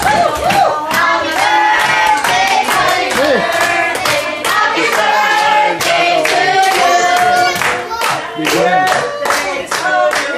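A group of adults and children singing a birthday song together, clapping along to the beat.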